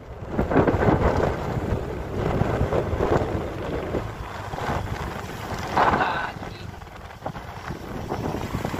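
Wind buffeting the microphone while travelling, over an uneven low rumble from the moving vehicle.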